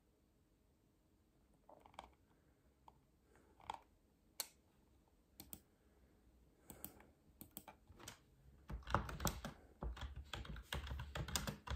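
Faint clicking like keys being typed: scattered single clicks at first, then a rapid, dense run from about nine seconds in.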